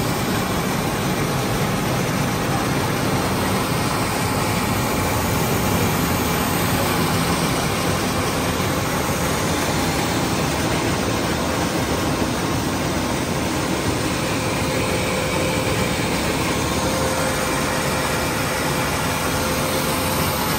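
6N70 mini rice mill running steadily while milling paddy, a dense, even mechanical whir with a few faint steady hums on top.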